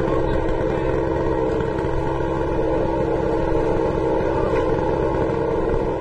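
A chainsaw's two-stroke engine running steadily at speed.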